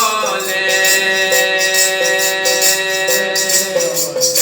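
Instrumental break in a devotional bhajan. A harmonium holds a sustained, reedy melody that steps from note to note, while jingling hand percussion keeps the beat.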